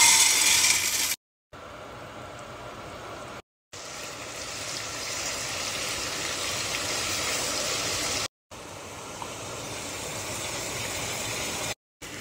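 Dry penne pouring out of its bag into a pot for about the first second, then a steady sizzle of diced chicken frying in oil and butter in a pan. The sizzle is cut off into silence several times.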